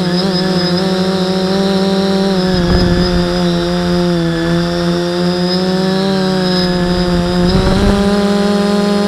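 Small multirotor drone's electric motors and propellers heard from the onboard camera: a steady buzzing hum made of several pitches at once. The pitch sags slightly for a few seconds in the middle and comes back up near the end. Low rumbles of wind on the microphone come twice, about two and a half seconds in and again near the eight-second mark.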